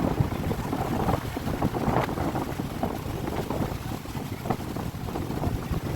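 Strong wind buffeting the microphone over a rough, storm-tossed river, with choppy waves splashing irregularly; one louder surge about two seconds in.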